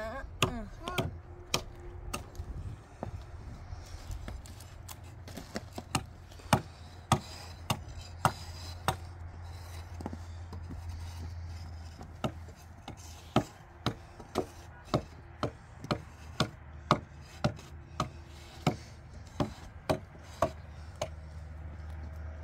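A hand tool striking wood with repeated sharp knocks, scattered at first, then settling into a steady run of about two strikes a second about halfway through, over a low steady hum.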